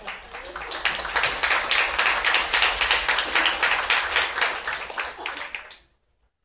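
Audience applauding: scattered claps swell into full applause about a second in, then stop abruptly near the end.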